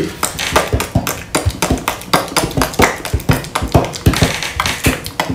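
A quick, irregular run of sharp clicking taps, about five or six a second, made as an imitation of Squidward's squelching footsteps from SpongeBob SquarePants.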